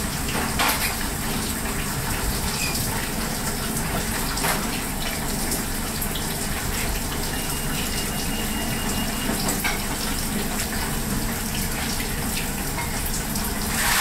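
Steady rush of water running from a kitchen tap, with a few light knocks now and then.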